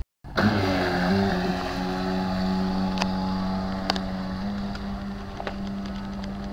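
Battery-powered Admiral 40-inch RC boat's electric motor running at speed on the water: a steady whine that starts abruptly, steps up slightly in pitch in the first second, then holds while slowly growing fainter.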